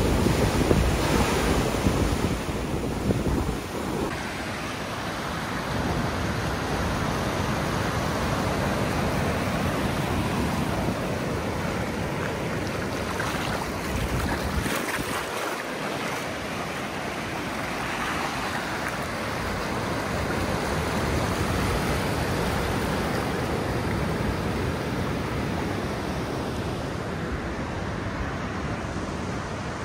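Ocean surf washing up the beach in a steady hiss of breaking water, with wind buffeting the microphone in the first few seconds.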